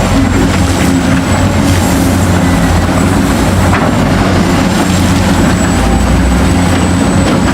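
Heavy machine engine running steadily with a loud low rumble, the sound of an excavator.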